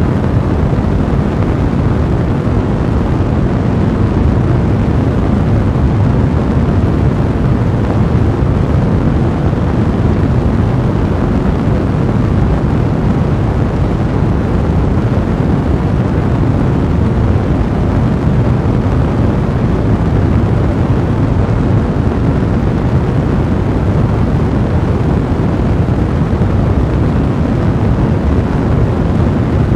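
Fire blazing with a steady, deep rumbling roar, a dense even noise without distinct pops.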